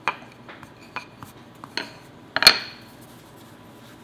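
A wooden rolling pin knocking and clacking against a wooden cutting board as dough is rolled and handled: five or six sharp knocks, the loudest about two and a half seconds in.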